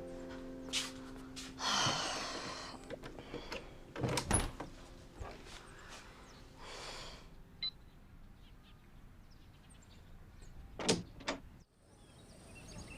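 A few scattered knocks and rustling swishes, the kind of handling and door-like sounds of people moving about a room, with a sustained musical chord fading out at the start.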